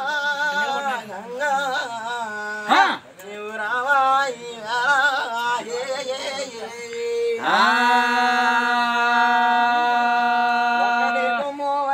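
A man singing a Telugu devotional song in a raga-based style, with wavering, ornamented phrases, then one long held note starting about seven and a half seconds in that breaks off just before the end.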